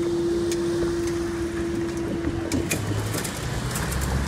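Level crossing barrier mechanism humming steadily as the barriers rise, cutting off about two and a half seconds in with a couple of clicks; low car engine noise follows as traffic moves off.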